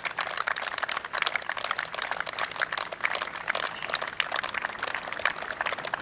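Applause from a line of people clapping steadily, many hands at once in a dense, continuous patter.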